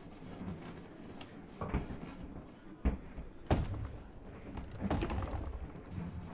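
A handful of scattered knocks and bumps, the loudest about three and a half seconds in, over a low room rumble.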